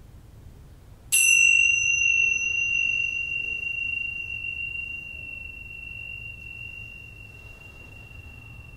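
A small bell-like chime struck once about a second in, ringing a single clear high tone that fades slowly over several seconds.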